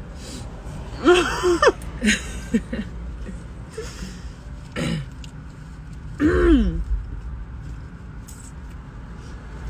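A few short wordless vocal sounds, such as hums or exclamations, sliding up and down in pitch. One comes about a second in and two more past the middle, the last with a low bump. They sit over a low steady rumble in a car's cabin.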